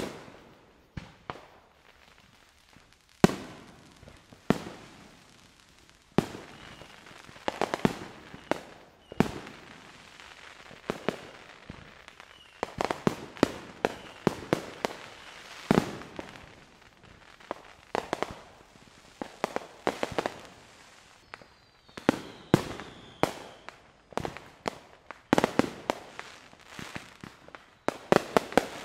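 Fireworks going off: a string of sharp, irregularly spaced bangs from aerial shells bursting, with smaller pops between them and denser volleys around the middle and again near the end.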